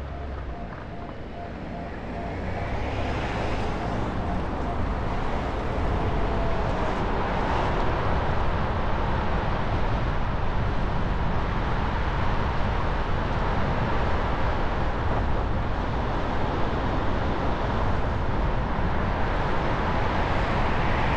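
Car driving on city streets: steady road and traffic noise that grows louder over the first six seconds, then holds steady.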